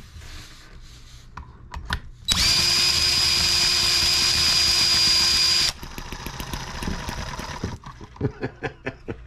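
Cordless drill with a starter attachment spinning a small M18 model single-cylinder engine for about three seconds with a steady whine. When the drill comes off, the engine sputters with a quick run of uneven pops that thin out to a few separate ones as it slows. It tries but does not keep running on alcohol through its vaporizer carburetor.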